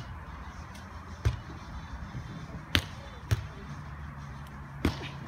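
Beach volleyball rally: the ball is struck by players' hands and forearms, giving about five sharp smacks at uneven gaps of one to one and a half seconds, over a faint low hum.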